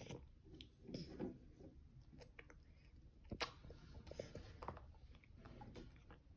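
A toddler chewing a mouthful of noodles, faint wet mouth sounds with scattered small clicks and taps and one sharper click about three and a half seconds in.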